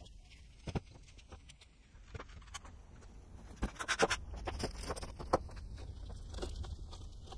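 Metal engine parts and hardware being handled on a wooden workbench: scattered clicks, taps and light knocks over a low background hum, busiest and loudest about four to five and a half seconds in.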